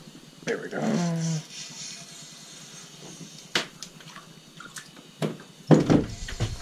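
A few sharp clicks and knocks from fishing gear being handled in a small, boxy room, ending in a louder thump near the end. A short voice-like sound with a falling pitch comes about a second in.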